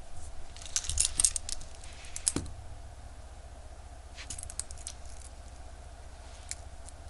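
Small metal clicks and taps from a wristwatch and watchmaker's tools being handled on a bench: a quick run of clicks about a second in, another about four seconds in, and a couple of single clicks near the end.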